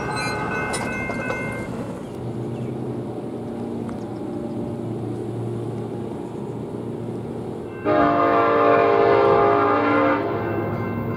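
Locomotive horn sounding one long blast of about two seconds, starting and stopping sharply, over the steady low rumble of a train.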